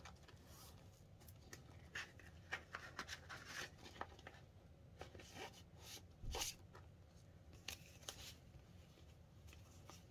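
Faint rustling and crinkling of Canadian polymer banknotes being handled and pulled out of a clear plastic zip pouch in a ring binder, with a soft knock about six seconds in.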